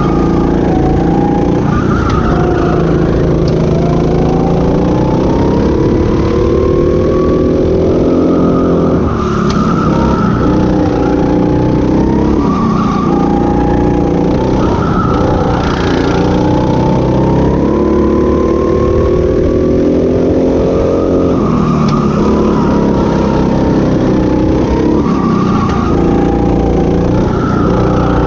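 Go-kart engine heard from the driver's seat. It revs up with a steadily rising pitch along the straights and drops back sharply into each corner, again and again.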